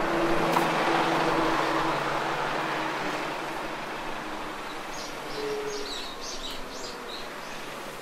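A motor vehicle passes, its engine and road noise loudest about a second in and then fading away. A bird chirps a quick run of short high notes between about five and seven seconds in.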